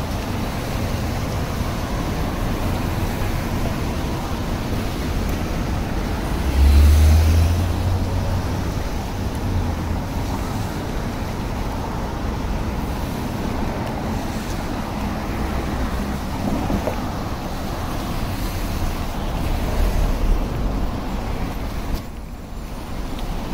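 Steady city street traffic noise, with a loud low rumble about seven seconds in.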